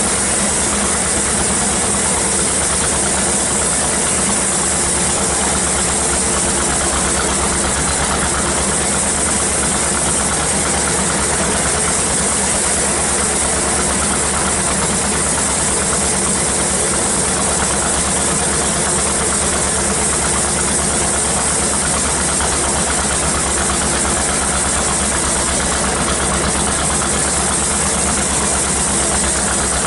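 Sawmill engine running at a steady speed with an even hiss over it, with no change in pitch or load.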